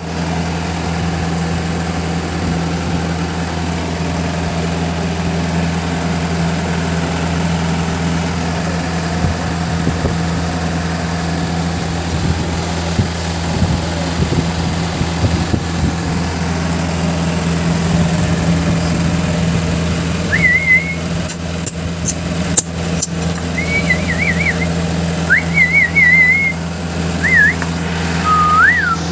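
A motor hums steadily throughout. In the last third, a string of short, high, warbling squeaks and a few sharp clicks come in over it.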